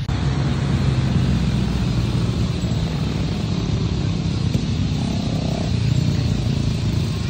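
Steady low rumbling noise with no clear strokes or tones.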